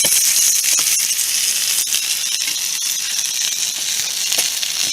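Burger patty sizzling in a mess-kit pan over a campfire: a steady frying hiss sprinkled with small crackles and pops.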